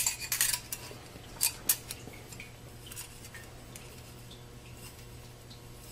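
Steel and friction plates of a 6R80 automatic transmission's 3-5-reverse (B) clutch pack clinking against each other as they are handled: a cluster of light metal clicks at the start and two more about a second and a half in, then only faint ticks.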